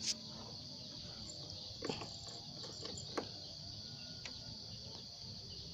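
Steady high-pitched chirring of crickets in the background, with a few faint taps; the motorcycle engine is not running.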